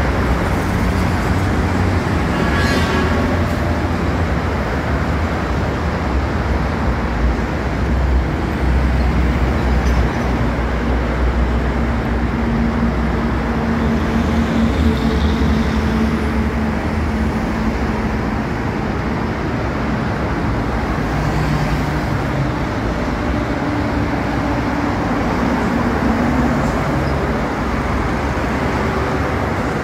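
Steady, loud road traffic passing close by on a busy toll road: a continuous rush of vehicles with shifting low engine hum.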